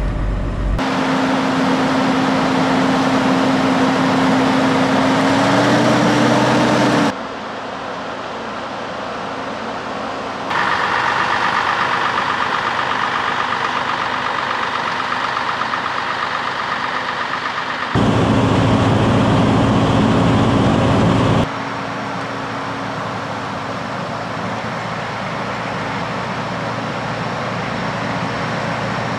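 Scania V8 diesel snowblower running hard as it clears snow, heard in several cuts from inside the cab and from outside. The engine note rises slightly about five seconds in.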